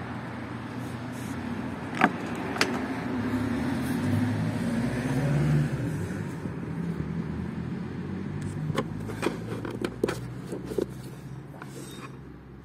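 A motor vehicle engine running steadily, swelling a few seconds in and then fading, with several sharp clicks and taps from plastic panels being handled.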